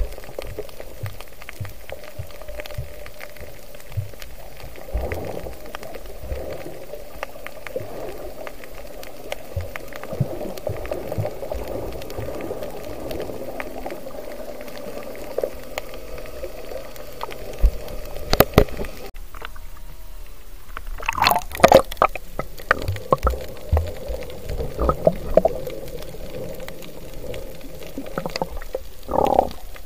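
Muffled underwater water noise picked up by an action camera inside its waterproof housing while snorkeling, with a steady hum underneath. From about two-thirds in, bursts of sharp knocks and crackling splashes come in as the camera nears the surface among swimmers.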